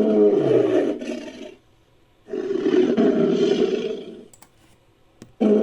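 Sound-effect roars of a sabre-toothed cat, made from Smilodon roar effects: one roar trails off about a second and a half in, a second runs from about two seconds in to about four, and a third begins just before the end.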